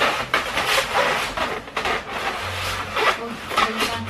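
Cardboard box being slid up off a stand mixer packed in polystyrene foam, the cardboard rubbing and scraping against the foam in a series of uneven scrapes, with a few short squeaks near the end.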